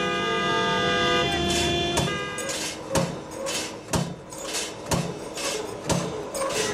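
Car horns honking in street traffic, several held tones sounding together. About two seconds in they give way to a series of sharp clicks or knocks, about one a second, with fainter ones between.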